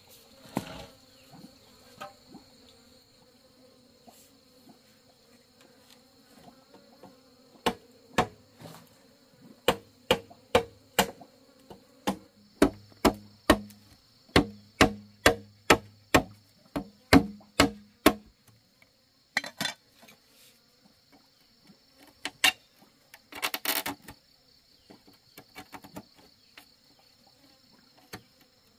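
Machete blade chopping into the wall of a green bamboo culm to cut a hole: a run of sharp chops about two a second from about a quarter of the way in to past the middle, then a few scattered strokes. A steady high insect buzz runs underneath.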